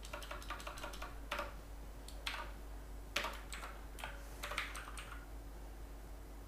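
Typing on a computer keyboard: irregular keystrokes, some in quick runs and some single, with short pauses between, over a faint steady low hum.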